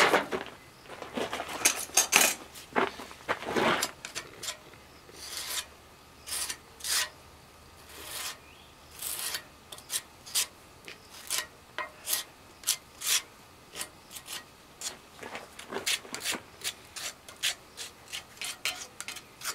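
A small hand spreader scraping and smearing construction adhesive across the face of a cut stone, in short repeated strokes about one or two a second. The loudest strokes come in the first few seconds.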